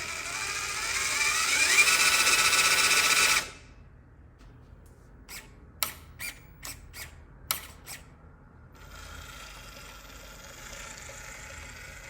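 Small electric motor of an RC truck whining and rising in pitch as it speeds up, then cutting off suddenly. After it come a handful of sharp clicks, then a faint steady whir.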